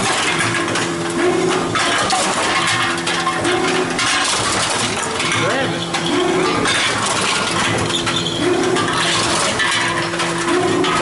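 Tomra reverse vending machine running, a steady motor hum with a short rise repeating about every two seconds, while returned containers clatter and clink through it.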